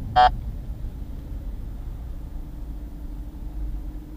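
Low, steady rumble of a car's engine and road noise heard from inside the cabin, with one short horn honk just after the start.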